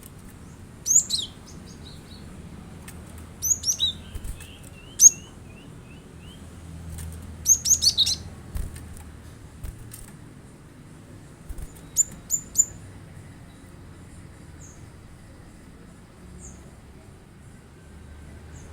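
Cinereous tit (gelatik batu) calling: several short bursts of high, sharp, down-slurred chirps with pauses between them, the last a quick set of three.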